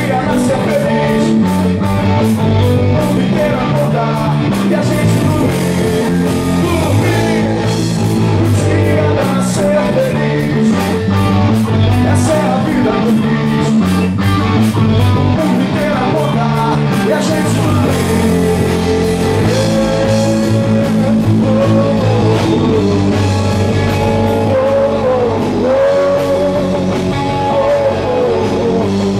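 Rock band playing live: electric guitar, bass and drums, with a singer's voice over them in the second half.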